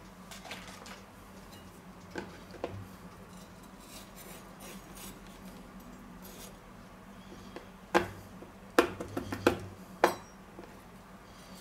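Kitchen knife cutting a red bell pepper on a wooden cutting board: soft cutting and a few small clicks, then several sharp knocks of the blade on the board near the end, over a faint steady hum.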